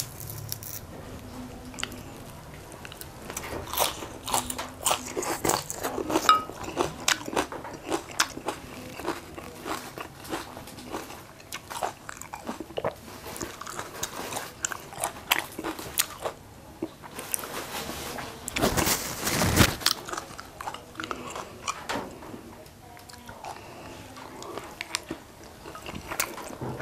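Close-up eating sounds: crisp biting and chewing of battered fried chicken wings and raw spring onion, a steady run of small crunches and clicks. About two-thirds of the way in there is a longer, louder burst of noise.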